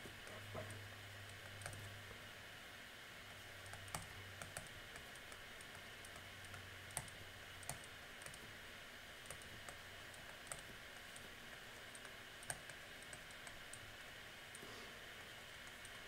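Faint, irregular clicks and taps of a stylus on a tablet screen during handwriting, over a low steady hiss; a low hum fades out about halfway through.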